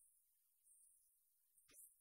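Near silence: only a faint high hiss, with one faint brief tick near the end.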